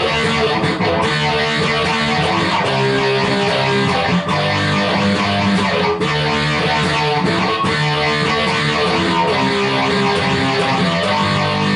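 Intro music led by guitar: loud, steady, with sustained notes.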